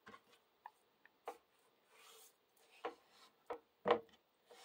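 Fingers rubbing cracked pepper and salt into raw chicken breasts on a ceramic plate: a handful of faint, scattered rubbing and patting sounds, the loudest near the end.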